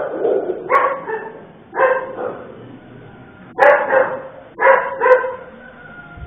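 A dog barking, about five short barks at uneven intervals.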